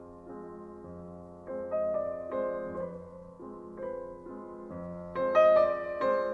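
Slow piano music: held notes and soft chords struck one after another, with a louder chord about five seconds in.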